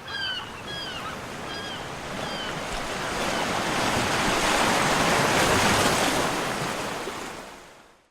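Black Sea surf: a wave builds, swells to its loudest about five seconds in and dies away near the end. A bird gives a few short falling calls in the first two seconds.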